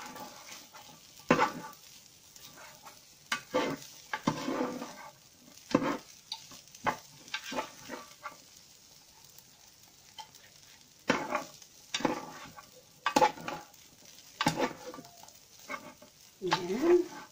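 Fried rice being stirred in a frying pan: a cooking utensil scraping and knocking against the pan in irregular strokes about once a second, over a faint sizzle.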